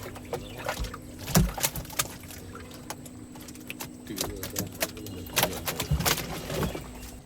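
Irregular knocks and thuds with water sounds over a steady low hum, and faint voices in the background.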